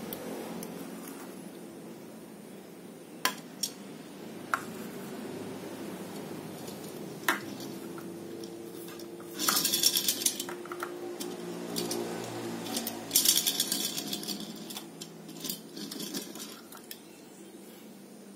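A die-cast Hot Wheels Datsun 620 pickup handled and rolled on a hard, glossy tabletop: a few sharp light clicks, then two bursts of rattling wheel noise as it rolls, about halfway through and again a few seconds later.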